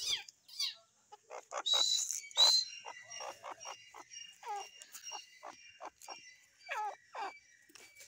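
Francolin (teetar) calling: a run of short sharp notes with several falling calls between them, the loudest notes about two seconds in.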